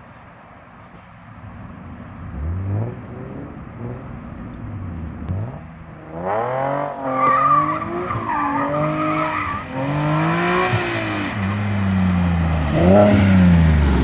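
Nissan 370Z Nismo's 3.7-litre V6, with test pipes and a cat-back exhaust, revving hard through the gears. The pitch climbs and falls back several times, and it gets much louder about six seconds in.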